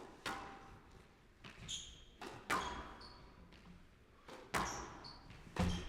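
Squash rally: about six sharp cracks of racket striking ball and ball hitting the court walls, each with a short echo in the court, and high squeaks of court shoes on the floor between them.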